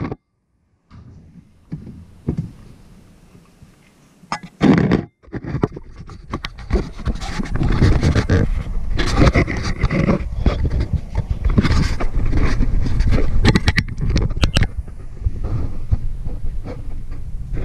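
Handling noise from a camera being carried and moved about by hand: rubbing and rumbling on its microphone with scattered knocks and clicks. It is quieter for the first few seconds, with one short loud bump about four and a half seconds in, and louder and denser from about six seconds on.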